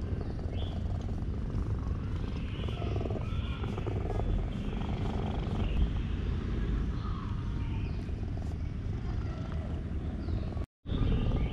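Domestic cat purring loudly and steadily while being stroked, a sign of contentment, broken by a brief gap near the end.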